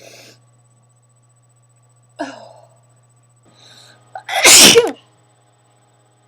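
A person's sneeze: a few sharp breaths in as it builds, then one loud sneeze about four and a half seconds in. It is one of a run of sneezes that the sneezer puts down to allergies.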